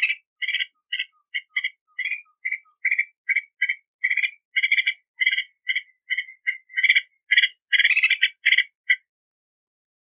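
Green aracari calling: a series of short, sharp notes, about two to three a second, crowding together and growing louder near the end before stopping about nine seconds in.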